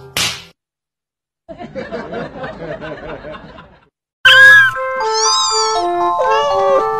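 A strummed guitar stops, and after a second of silence a person laughs for about two seconds. Then a bright, loud tune of held stepped notes starts, with rising-and-falling high glides over it.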